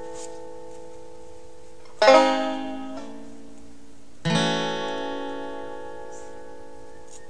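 Background music: slow chords on a plucked string instrument, each struck and left to ring out and fade. Two new chords come in, about two and four seconds in.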